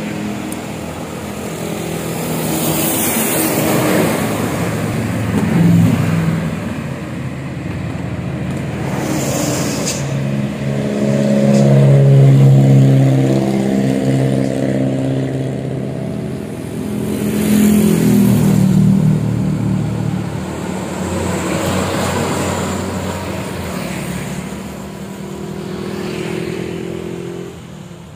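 Diesel engine of a large Mercedes-Benz bus passing close by, its engine note rising and falling, loudest about twelve seconds in, with other vehicles going by.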